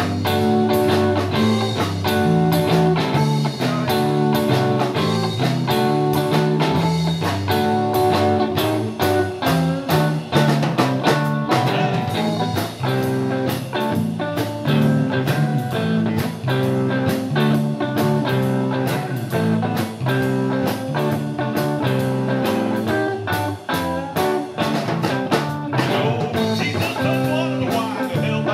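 Live blues-rock trio playing an instrumental stretch without vocals: electric guitar, electric bass and a Pearl drum kit.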